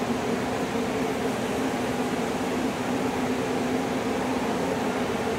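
Ride-on floor scrubber running as it cleans a marble floor: a steady machine hum over an even hiss.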